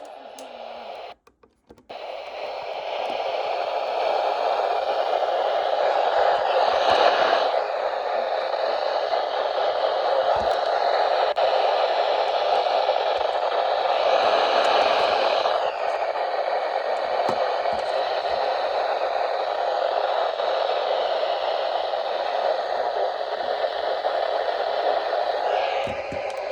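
Weather radio static: a steady, loud hiss with no voice in it, as if the signal has been lost. It cuts out briefly a little over a second in, then swells back and holds.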